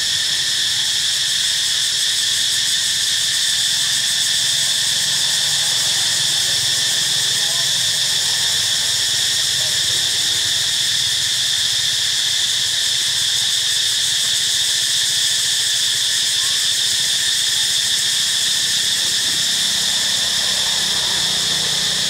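Steady high-pitched drone of a forest insect chorus, holding several shrill tones without a break.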